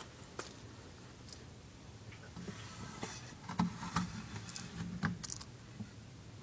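Bearded dragon biting and chewing a fuzzy mouse: scattered sharp clicks, with a quick run of clicks and soft thuds about halfway through.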